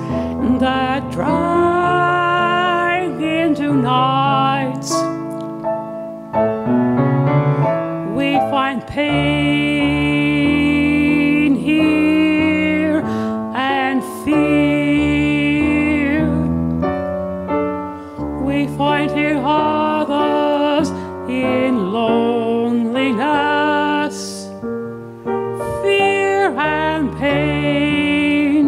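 A man singing a slow song with vibrato, accompanied by chords on a grand piano.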